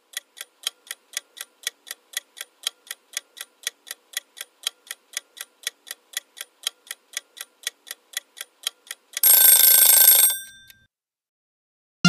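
Clock-ticking countdown sound effect, about four ticks a second, ending about nine seconds in with a loud ring of about a second that fades out: time is up.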